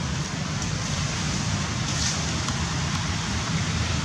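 Steady outdoor background noise, a low rumble with a hiss over it, and a few faint clicks.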